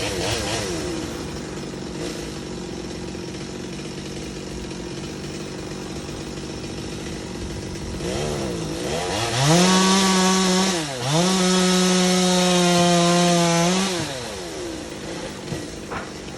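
Chainsaw engine idling, revved up briefly at the start, then opened up about halfway through and held at high speed for about four seconds with a brief dip, before dropping back to idle.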